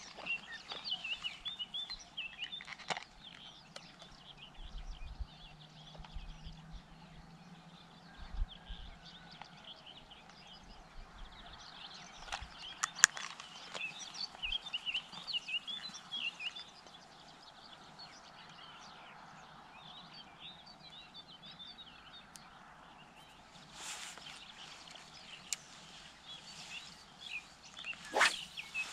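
Songbirds chirping and singing continuously in the background. A few sharp clicks cut through, the loudest about thirteen seconds in, with more near the end.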